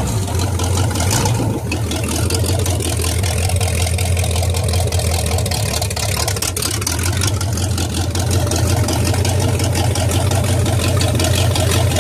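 Mariner 350 V8 marine engine running steadily just after firing up from a cold start on starting fluid, following a year in storage.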